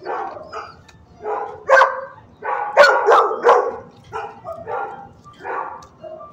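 Dog barking repeatedly in short bursts, with a run of three loud, sharp barks about three seconds in.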